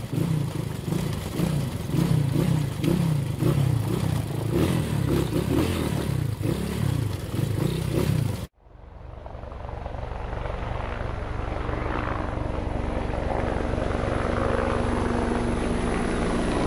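Dirt motorbike engine revving up and falling back over and over as it rides along. It cuts off suddenly about eight seconds in, and a drone's propellers take over with a steady hum that fades in.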